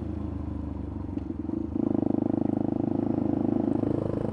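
Motorcycle engine and exhaust running, with a steady low note that steps up to a louder, evenly pulsing note about two seconds in.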